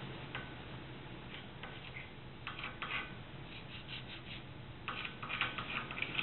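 Light clicks and short scratchy strokes of a marking stick against a steel plate, coming in small clusters and busiest near the end.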